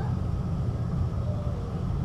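Duewag GT8 eight-axle articulated tram running, a steady low rumble.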